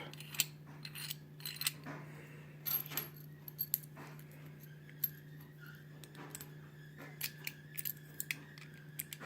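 Small metal clicks and rattles, irregular and scattered, from handling a just-opened wafer lock and its picking tools.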